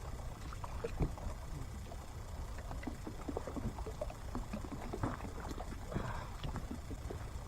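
Steady low rumble of wind with many scattered small knocks and light water splashes, one slightly louder knock about a second in.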